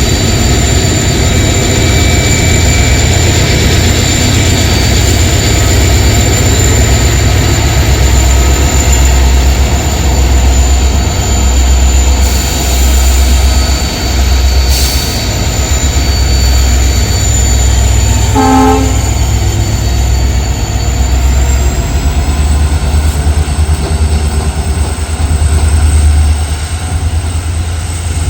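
A train running close by with a loud, heavy rumble throughout and a thin, steady high whine that rises a little about two-thirds of the way in. About eighteen seconds in, a locomotive horn gives one short toot.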